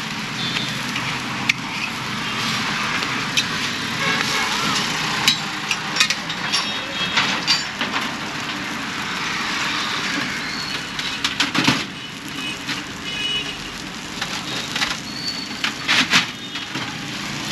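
Uttapam sizzling on a hot flat griddle, a steady hiss, with scattered sharp clicks and knocks, the loudest about five seconds in and near the end.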